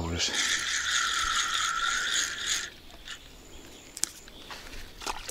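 Spinning reel on a picker rod ratcheting steadily while a hooked crucian carp is played, stopping about two and a half seconds in; faint clicks follow.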